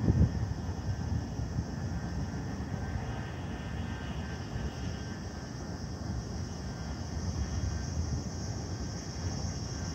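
Steady low rumble of distant city road traffic heard from high above, with a faint steady high-pitched hiss over it that strengthens a little near the end.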